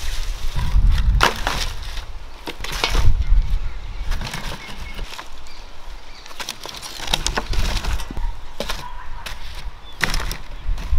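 Irregular sharp knocks and cracks, a second or so apart, with bouts of low rumbling between them.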